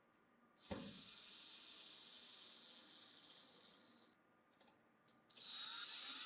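Angle grinder motor running with a steady high-pitched whine. It runs for about three and a half seconds and cuts off suddenly, then starts again near the end.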